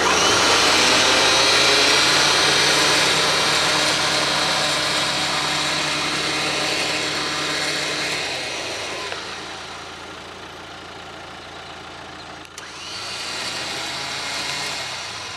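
Grizzly 8500 lb electric winch motor running under remote control, paying out its rope, for about eight seconds before stopping. Near the end there is a click and the motor runs again for a couple of seconds.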